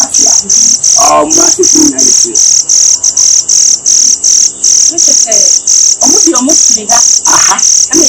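Cricket chirping at night, a loud high-pitched chirp repeated evenly about three times a second.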